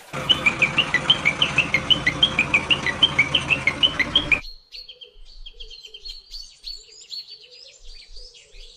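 Small birds chirping: quick, high chirps, several a second, over a steady background hiss and hum. About four seconds in this cuts off abruptly to quieter, sparser chirping.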